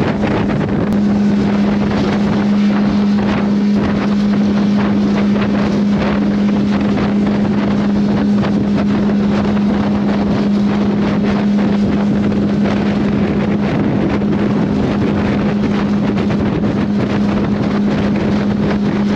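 Motorboat underway at a steady speed: a steady engine drone with the rush of wind on the microphone and water along the hull.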